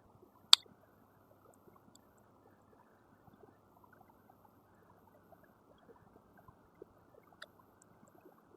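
Handling noises on a phone-repair bench while power leads are being set up: one sharp click about half a second in, then faint scattered light ticks and taps over a low steady hiss.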